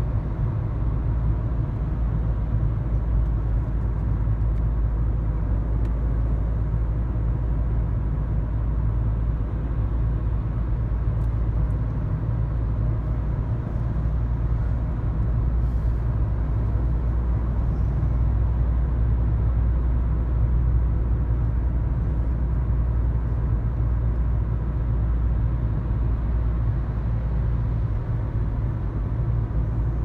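Steady low rumble of a moving car heard from inside the cabin: engine and tyre road noise while cruising.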